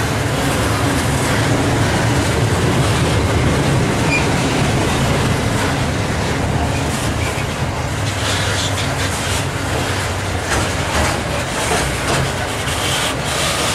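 Loaded coal hopper wagons rolling past on steel rails with a steady rumble. From about halfway there are sharp clicks as wheels cross the rail joints, as the last wagons go by.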